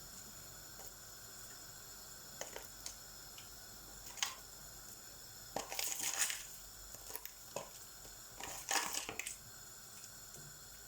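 Kitchen handling sounds while cooking paella: scattered light clinks, scrapes and rustles of utensils and food in the pan, a few at a time with pauses between, over a steady faint hum.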